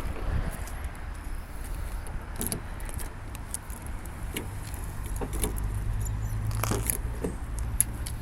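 A bunch of keys jangling, with scattered clicks and a few knocks, as the rear compartment of a Volkswagen Saveiro pickup is unlocked and opened, over a low steady rumble.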